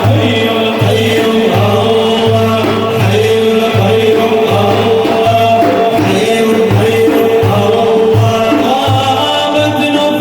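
A Sufi devotional ensemble chanting praise of the Prophet, the voices held and wavering over a steady, repeated drum beat.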